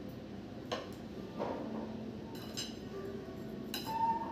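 Steel pizza-cutter wheel rolling through a pizza and clinking against the ceramic plate beneath, several sharp clinks spread across a few seconds, some ringing briefly.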